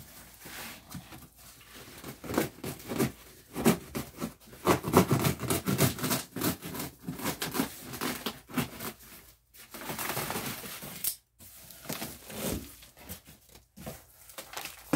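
A knife cutting and sawing through a cardboard shipping box and its styrofoam packing, in irregular scratchy strokes, with the cardboard and foam tearing and crackling.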